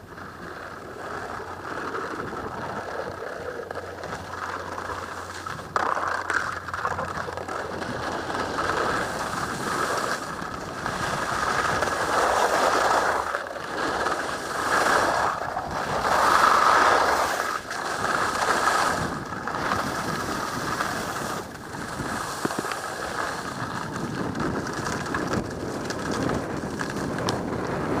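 Skis carving down firm, hard-packed snow: a continuous scraping hiss that swells with each turn, loudest through the middle, mixed with wind rushing over the microphone.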